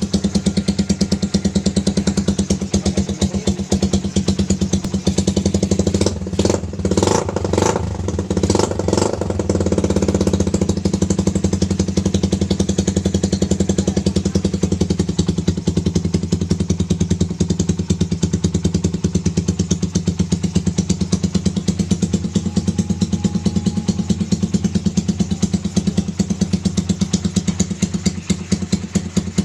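Carburetted Suzuki Raider 150's single-cylinder four-stroke engine with an RRSpeed aftermarket racing exhaust, idling with a rapid, even exhaust beat. About six to nine seconds in it is given a quick series of throttle blips, then settles back to idle.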